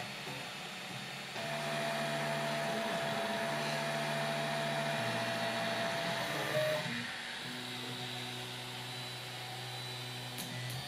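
HyperCube 3D printer running a print: stepper motors holding steady tones that jump in pitch as the moves change, over the steady whir of the hotend and part-cooling fans. It gets louder about a second and a half in and quieter again about seven seconds in.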